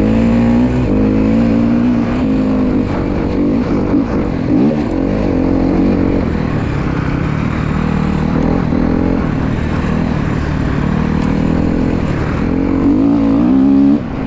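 Honda CRF250R dirt bike's four-stroke single-cylinder engine running under load, its pitch rising and falling with the throttle. Near the end it revs up and then drops off sharply.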